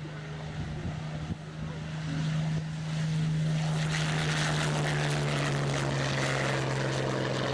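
Hawker Hurricane's Rolls-Royce Merlin V12 engine and propeller in a flypast, growing louder over the first few seconds. Its steady note drops in pitch about two-thirds of the way through as the aircraft passes.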